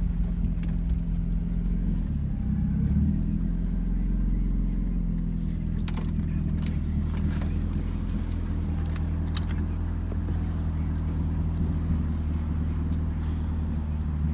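Car engine running at low speed while the car is maneuvered into a parking spot, a steady low hum that shifts about two to three seconds in. A few sharp clicks come around six and nine seconds in.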